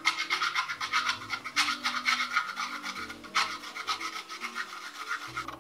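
Fresh coconut being grated by hand on a metal box grater, in quick repeated scraping strokes.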